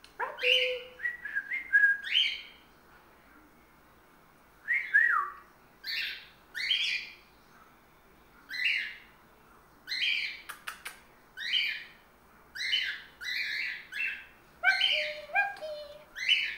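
Young male cockatiel singing a string of short whistled chirps, about one a second, with a pause a few seconds in. At five months he is just starting to sing, so the song is still forming.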